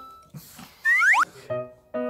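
Light background music, with a short cartoon-style whistling glide sound effect about a second in.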